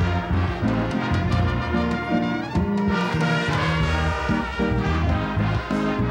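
Live church orchestra playing, with brass instruments prominent over a moving bass line.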